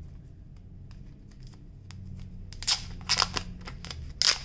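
Clear cellophane wrap being peeled off a rolled canvas. It handles quietly at first, with a few faint ticks, then crinkles and crackles sharply from about halfway through.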